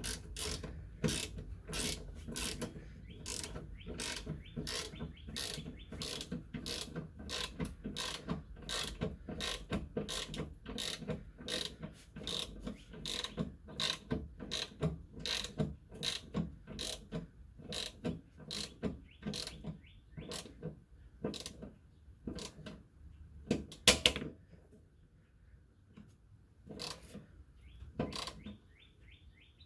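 Hand ratchet wrench clicking steadily, about two to three clicks a second, as bolts holding a fuel filler neck are tightened; near the end it slows to a few single, louder clicks with pauses between.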